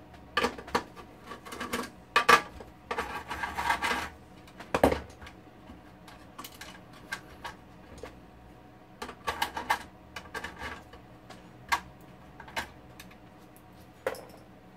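Screws being worked out of the metal frame of an HP 5328A frequency counter with a screwdriver: scattered metallic clicks and scrapes, a few clusters of rapid ticking, and one louder knock about five seconds in.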